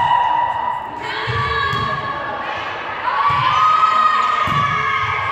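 Spectators in a sports hall shouting and chanting in high, drawn-out voices, with low thumps every second or so.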